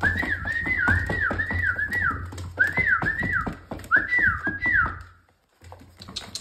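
Rottweiler puppy whining, a string of short high-pitched whines that each fall in pitch, over the clicking of claws on the plastic tub. The whining stops about five seconds in.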